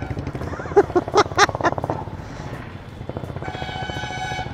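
Motorcycle engine running at low speed in dense city traffic. About a second in come four quick horn beeps, and near the end a longer, steady horn blast.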